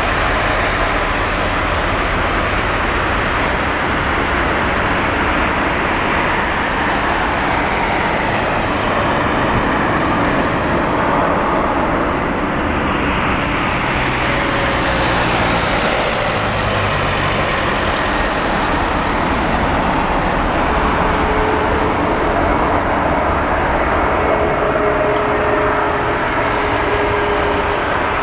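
Jet engine noise of an Airbus A330-300 on final approach: a steady rush with a whine that slides down in pitch as the airliner passes, loudest around the middle.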